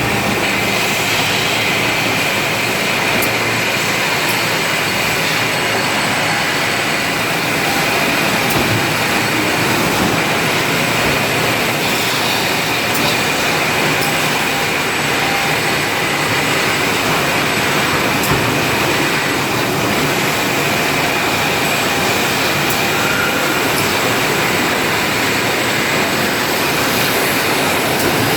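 Industrial vacuum cleaner running steadily: a loud, even rush of airflow with a high motor whine over it.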